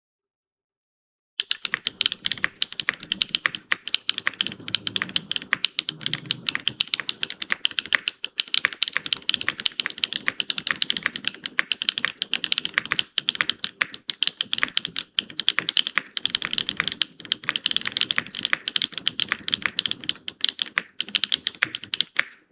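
Fast, continuous typing on an Athena1800 custom mechanical keyboard with Neo Azure switches, a carbon fiber plate and GMK Camping keycaps: a steady run of keystroke clacks that starts after about a second and a half of silence.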